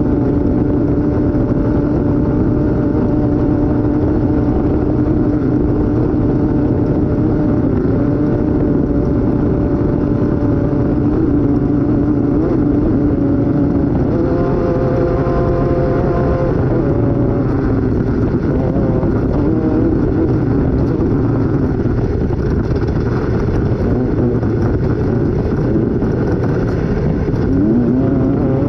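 Off-road race vehicle's engine running hard at speed over a constant heavy rumble. The engine holds steady revs for the first half, then its pitch rises and falls repeatedly from about halfway through.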